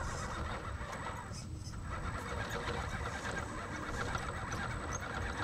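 Electric RC rock crawler's motor and geared drivetrain running under throttle with a steady whine as its Cross RC Blackrock tires slip on steep rock, unable to dig in and climb.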